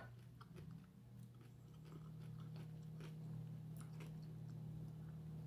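Faint chewing and biting of a grilled Reuben sandwich, with soft scattered mouth clicks, over a steady low hum.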